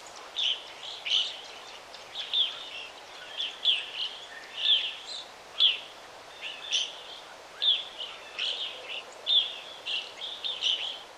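Bird chirping, short sharp calls repeating about once or twice a second over a steady background hiss.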